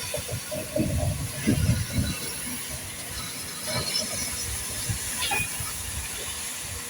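Heritage steam locomotive with a steady hiss of escaping steam, under irregular low rumbling.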